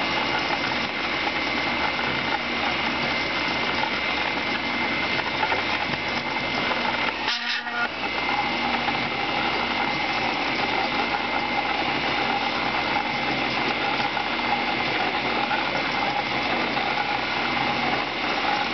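Home-built CNC coil winder running steadily with a constant mechanical whine, winding 24-gauge Litz wire onto a coil while its wire guide moves along the coil. The sound briefly dips for a moment about seven and a half seconds in.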